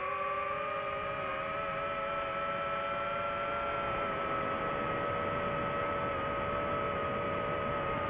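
DJI FPV drone's motors and propellers in flight, a steady whine of several tones over a rushing noise, the pitch drifting slightly up and down as motor speed changes.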